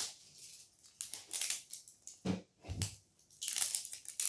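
Handling of plastic blind-box capsule balls and their wrapping: rustling and crinkling, with two dull knocks a little past the middle.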